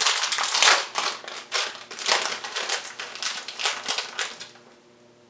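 Plastic packet of Mr. Beer carbonation drops crinkling as it is handled, a dense run of irregular crackles that dies away near the end.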